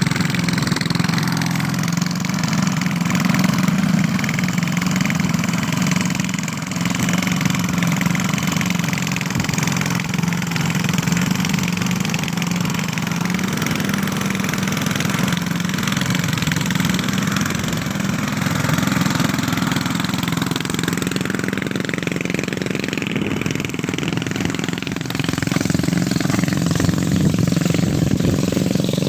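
A large engine running steadily at a fairly constant speed, with a strong low hum and mechanical clatter above it.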